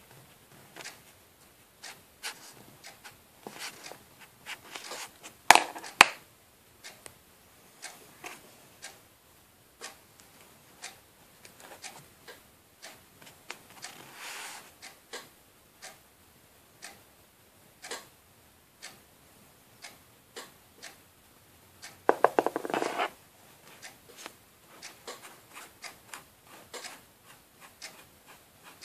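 Light scattered clicks and taps of a CD, a small glue bottle and a brush being handled on a tabletop, with two sharp clicks about five seconds in and a brief rapid rattle of ticks about three-quarters of the way through.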